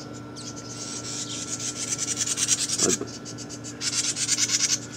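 A wren scolding in alarm at a nearby snake: long runs of rapid, high-pitched chattering, with a short break about three seconds in.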